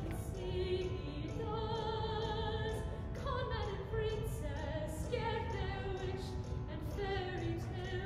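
A singer holding long, operatic notes with vibrato, moving from note to note over musical accompaniment, from a live stage performance.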